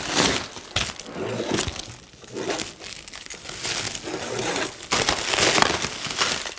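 Plastic wrapping film crinkling and tearing as it is cut and stripped off the packaging, with louder crackling about five seconds in.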